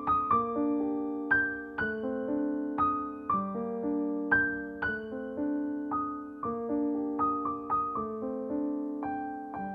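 Background piano music: a gentle melody of single notes, about two a second, each struck and left to fade.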